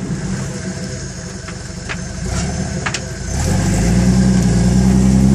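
Jeep Wrangler YJ's engine running at low revs on a rock crawl, then revving up and pulling harder about three and a half seconds in. A few sharp clicks or knocks come in the middle.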